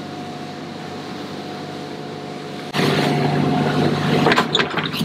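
Boat engine running steadily while trolling, a hum with a steady tone. About halfway through it becomes suddenly louder, with a rush of water and wind noise over the engine.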